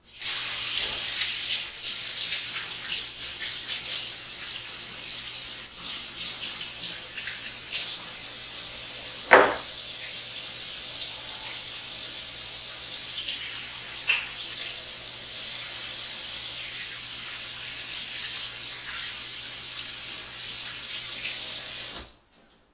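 Water running from a kitchen tap into a sink, a steady splashing hiss that cuts off near the end. A single sharp clack, the loudest sound, comes about nine seconds in, with a lighter clink around fourteen seconds.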